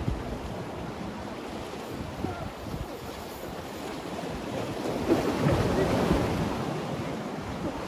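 Sea waves washing and splashing against the concrete blocks of a breakwater, with wind buffeting the microphone. A surge swells louder about five seconds in, then eases.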